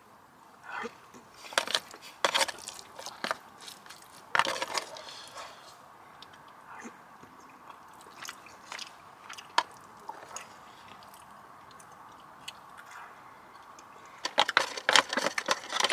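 Mealtime sounds: scattered crunches and clicks of food being eaten and tableware being handled, busiest in the first few seconds and again near the end.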